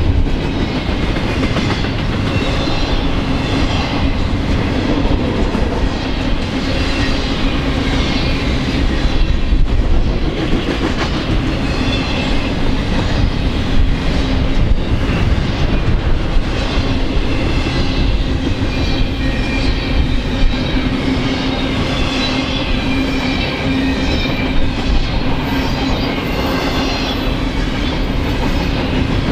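Double-stack intermodal container train passing close by at speed: steel wheels rolling on the rail in a steady loud wash with a low hum, broken by irregular clickety-clack knocks from the wheelsets.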